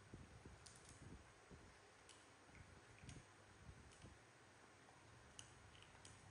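Near silence with a few faint, sharp clicks, roughly one a second, from baby monkeys handling and nibbling crisp dried banana chips.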